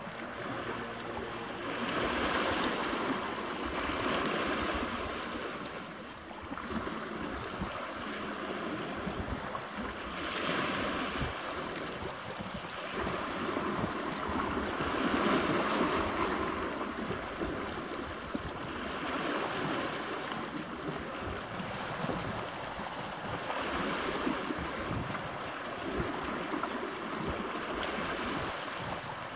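Sea water washing and lapping, swelling and fading every few seconds, with wind noise on the microphone.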